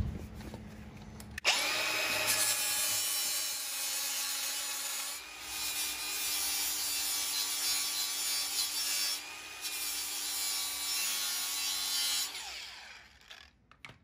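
Milwaukee angle grinder starting about a second and a half in and grinding down a TIG weld on an aluminium alloy wheel, a steady motor whine over the grinding hiss that briefly eases twice before winding down near the end. The grinding cleans off the impurities boiled out of the wheel casting during welding.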